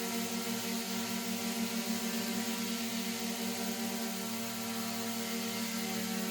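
DJI Mini 3/4 Pro drone propellers spinning steadily: a constant buzzing hum with a strong low tone and many overtones over a hiss, wavering slightly in pitch in the middle.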